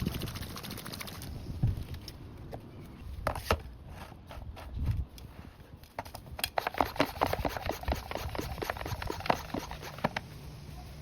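A run of irregular clicks and knocks over a low rumble, sparse at first and coming thicker and quicker in the second half.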